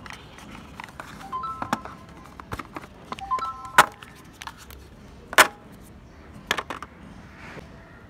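Hard plastic accessories, a phone charger and a USB cable, knocked and set down in a cardboard phone box and its plastic tray: a handful of sharp clacks and taps, the loudest near the middle. Two short chime-like chords sound about a second and a half in and again about two seconds later.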